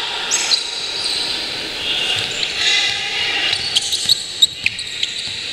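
Basketball being dribbled on a hardwood gym court, with a quick run of sharp bounces about four seconds in, amid high squeaks of sneakers and players' shouts echoing in a large hall.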